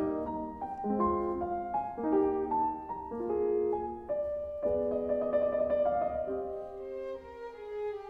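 Background music: a piano playing a slow classical melody, one note after another, each note ringing out.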